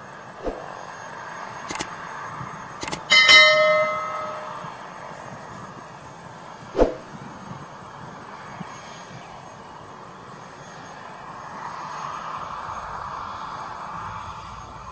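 Single-turbine AS350 Écureuil helicopter running on the ground with its rotor turning, a steady whine and rotor noise that swells slightly near the end. About two to three seconds in come a few sharp metallic clanks, the loudest ringing on for about a second, and a single thump follows about seven seconds in.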